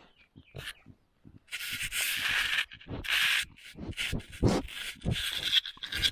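Collared peccaries (javelinas) rooting in loose dirt right at a ground-level camera: light scratching at first, then, about a second and a half in, loud rough scraping and rubbing in repeated bursts with a few soft thumps.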